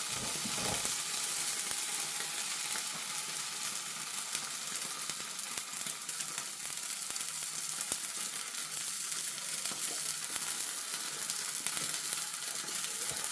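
Oil sizzling steadily in a frying pan as paratha fries.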